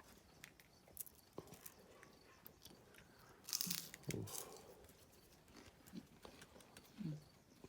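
Faint crunching and tearing of food being handled, with scattered small clicks and a louder rustling crunch about three and a half seconds in.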